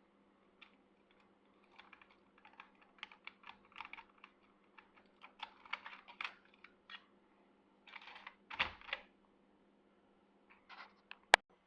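Small metal clicks, scrapes and rattles from tools and keys working a ThinkPad docking station's wafer lock, in irregular flurries, ending in one sharp, loud click.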